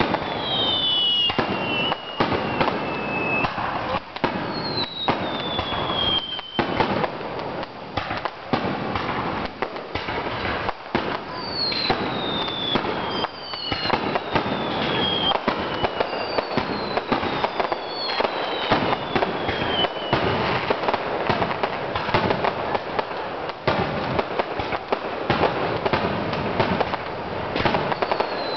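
Fireworks display: a dense, continuous run of shell bursts and crackling. High whistles that fall in pitch sound every few seconds over the bangs.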